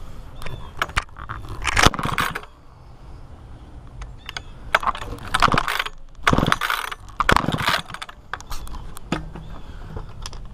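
Camera handling noise: irregular scraping, crunching and clattering knocks, with a low rumble, while the camera is carried and moved about. No engine is running.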